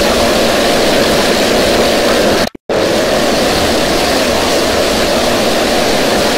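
Very loud, heavily distorted logo-jingle audio from a sound-effects render, turned into a harsh, dense roar with no recognisable tune. It cuts out abruptly about two and a half seconds in and restarts at once with the next, equally distorted version.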